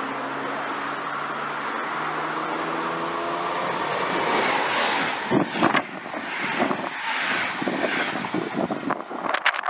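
Electric train passing close by on the main line: a steady rumble with a motor whine that rises in pitch, then from about halfway a rapid, irregular run of thumps and wind gusts as the cars go past.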